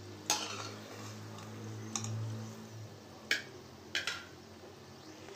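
A metal ladle clinks four or five times against the side of a kadhai while pakoras are turned and lifted out of hot frying oil.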